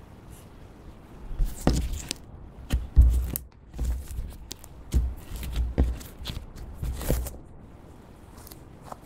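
Hands squishing and kneading clear slime mixed with crushed pink blush powder: irregular sticky clicks and dull thumps, starting about a second and a half in and dying away about seven seconds in.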